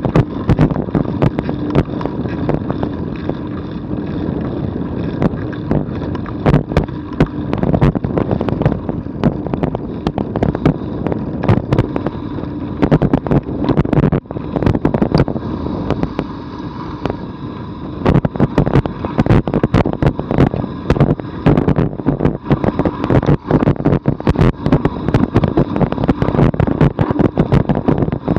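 Bicycle rolling down a rough gravel-and-dirt track: a steady crunching rumble from the tyres with frequent sharp knocks and rattles as the bike jolts over ruts and stones. The knocks come thicker and louder from about eighteen seconds in.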